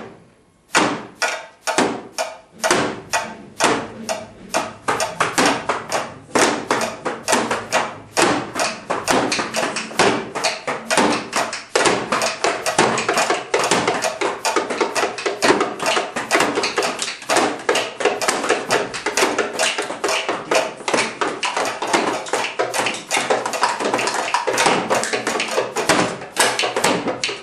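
Junk-band percussion: household objects such as plastic tubs and foil trays being tapped and struck in rhythm. It opens with separate strikes a little apart, and after a few seconds they thicken into a dense, layered groove.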